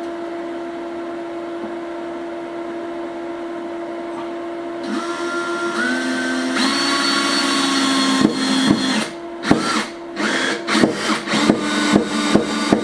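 Power drill driving a screw through the inverter's mounting bracket into a wooden board. The motor whines in about five seconds in, then comes in a quick series of short trigger bursts as the screw is run home.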